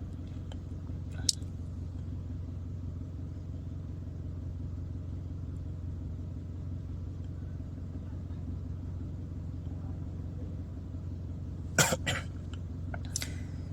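Steady low hum with a sharp click about a second in and a few short knocks and clicks near the end, from hands working at a car's engine-compartment fuse box while a 15-amp fuse is pulled and checked.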